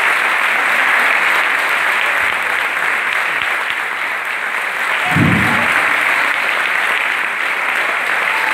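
Audience applauding steadily, with a single dull low thump about five seconds in.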